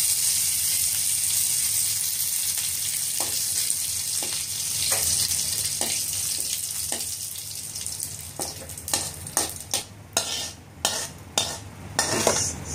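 Curry leaves and mustard seeds sizzling in hot oil in a metal kadai, stirred with a metal spatula. The sizzle dies down, and in the last few seconds the spatula scrapes and taps against the pan several times.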